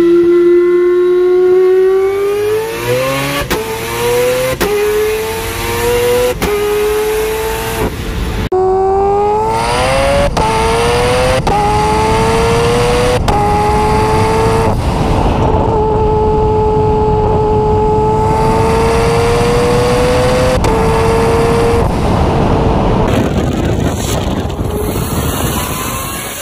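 A turbocharged four-rotor peripheral-port rotary engine in a 1993 Mazda RX-7 accelerating hard. Its note climbs in pitch, broken by a series of quick gear changes, then holds steady at speed for several seconds. Near the end it gives way to a noisier rush of the car going past.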